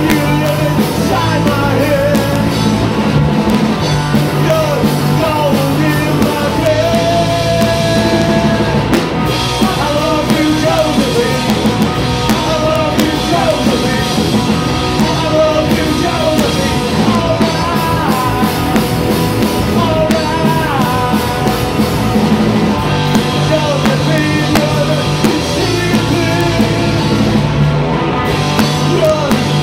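Live rock band playing loud: electric guitar, bass guitar and drum kit, with a singer's voice over them.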